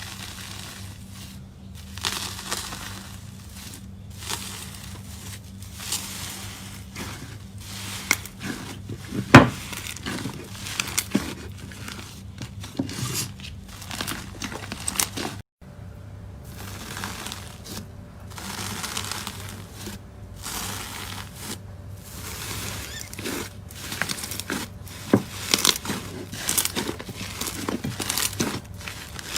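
Slime being squeezed and poked by hand, making many irregular crackles, clicks and pops over a faint steady low hum; the sound breaks off abruptly about halfway and picks up again.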